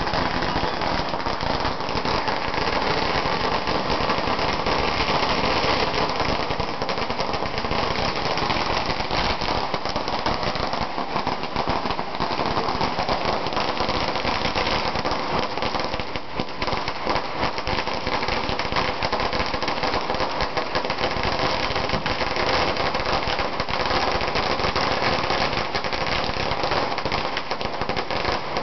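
A 10,000-cracker firecracker string (ladi) going off in one unbroken, rapid stream of bangs that stays loud throughout.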